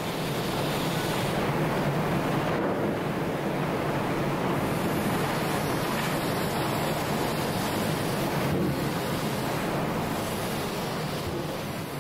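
Steady rushing roar of a large open fire, the flames of a cooper's fire used to toast oak barrels, tailing off near the end.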